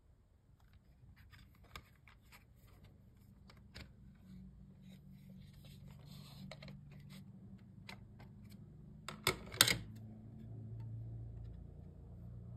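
Plastic CD jewel case being handled and opened, with light clicks and taps, then two louder sharp snaps a little past nine seconds in as the disc is popped off the tray's centre hub.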